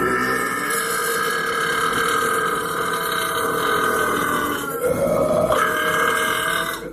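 A person burping: one long, drawn-out burp that lasts nearly seven seconds. Its tone shifts a little under five seconds in, and it cuts off near the end.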